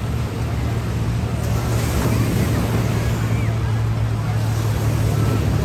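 Beach ambience: ocean surf washing with wind rumbling on the microphone, a steady low hum underneath and faint distant voices.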